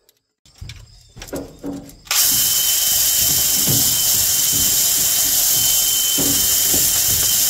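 A few knocks and clatters, then about two seconds in a power drill starts and runs steadily with a high whine, turning over the crankshaft of a Ford 429 V8 with a cylinder head off. Low knocks from the engine come through now and then.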